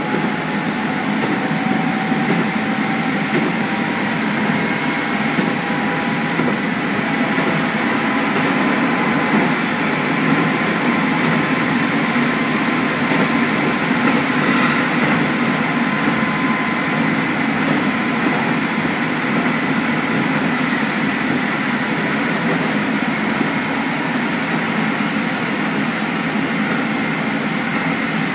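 Keikyu electric train running along the line, heard from inside the car: a steady rumble of wheels and running gear, with a faint steady high whine above it.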